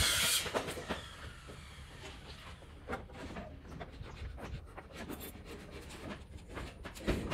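Construction-site activity: irregular knocks and clatter of timber and metal, opening with a brief loud burst of noise.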